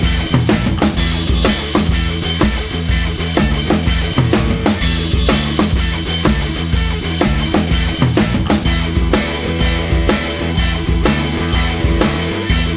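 Music with a driving drum kit beat: kick, snare and cymbals over a repeating bass line.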